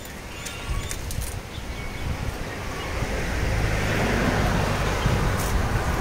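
Outdoor noise: a low rumble like wind on the microphone, with a rushing hiss that swells from about three seconds in.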